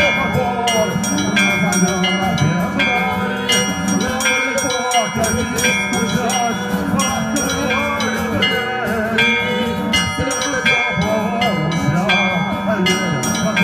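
Church bells rung in a fast, repeating chime pattern, several strikes a second, each ringing on over a steady low tone and a wavering melody line.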